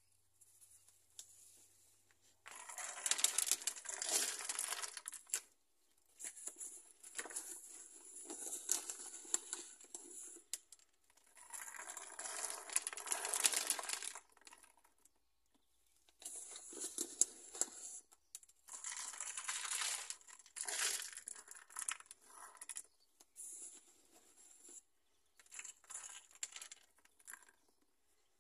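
Fine grit shaken out of a small packet and scattered over a model mountain and road: the packet crinkles and the grains patter down in about seven separate bursts of a few seconds each, with short pauses between.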